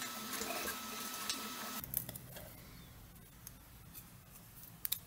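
Prusa Mini 3D printer running a print, its stepper motors giving a steady whine with a high held tone, which cuts off after about two seconds. Then a few light clicks and taps as the printed PLA plate is handled on the print bed.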